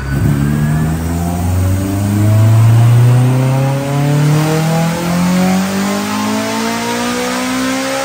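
Supercharged Honda S2000 four-cylinder engine at full throttle on a chassis dyno, breathing through a single titanium exhaust, revving in one continuous pull with its pitch rising steadily. On this run boost peaked and fell away at the top end because the supercharger drive belt was loose.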